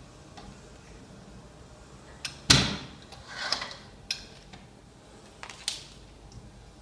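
Manual impulse bag sealer with a PFS-200C label: its top arm comes down on a plastic bag with one loud clack about two and a half seconds in, the bag film rustles, and sharper clicks follow twice as the arm is worked and let go.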